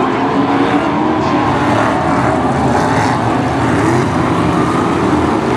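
Several BriSCA F1 stock cars' Chevrolet V8 engines running hard in a race, their overlapping engine notes wavering up and down as the cars pass.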